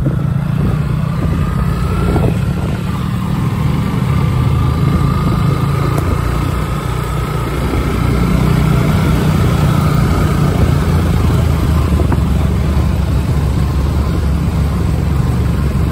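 Yamaha FZ single-cylinder motorcycle engine running steadily while riding at low speed, recorded from a camera mounted on the bike, with another motorcycle close ahead; it gets a little louder about halfway through.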